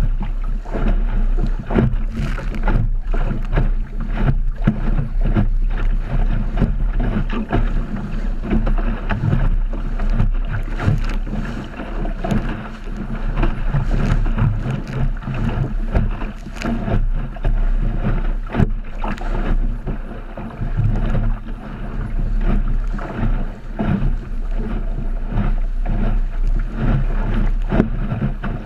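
Water rushing and splashing along the hull of an Optimist sailing dinghy as it sails through chop, with irregular slaps of waves against the hull and wind buffeting the microphone.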